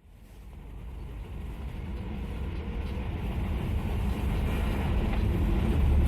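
GAZ-21 Volga on the move, its engine and road rumble growing steadily louder as the car gathers speed.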